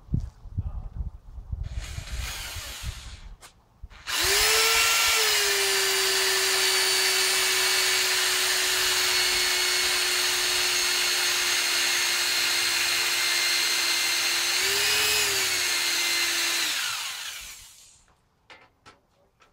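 Corded electric drill boring a centre hole through a metal plate. The motor starts about four seconds in with a steady whine and runs under load for some thirteen seconds, its pitch briefly rising once near the end, then winds down.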